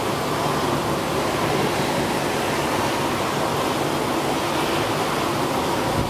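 Windstorm with heavy rain: a steady, loud rush of wind and driving rain.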